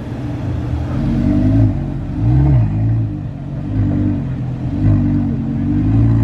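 Car engine being revved in repeated short blips, about five in a row a little over a second apart, each rising and falling in pitch over a steady idle.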